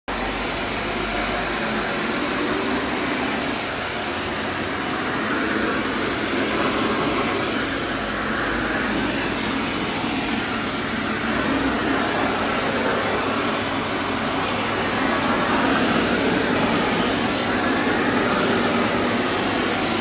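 Kärcher VC 3 Premium Plus 1100 W bagless canister vacuum cleaner running with a steady suction roar, its tone shifting slightly as the floor nozzle is pushed over the tiles.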